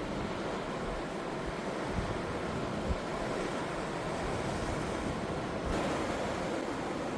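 Pacific Ocean surf washing in steadily, with wind buffeting the microphone in low thumps; a wave surges louder a little before the end.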